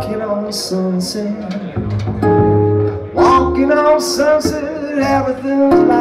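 Live acoustic band playing: two acoustic guitars strumming over an upright bass line, with some vocal or melodic lines on top.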